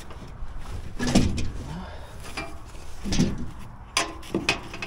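A run of irregular sharp knocks and clunks, a few close together near the end, with brief low scraping or groaning sounds between them, as of parts being handled.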